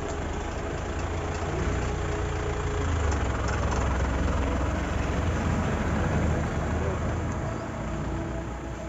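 Tata pickup truck's diesel engine running, then pulling away down the lane, its low rumble easing a little near the end.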